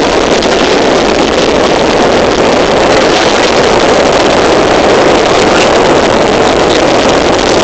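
Loud, steady rushing noise of wind and road, heard inside a car moving through rain.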